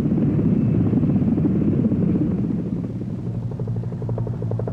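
Military helicopters in flight: the rumbling rotor and engine noise of an H-53, changing about three seconds in to an H-60's steadier pitched drone with a regular blade chop.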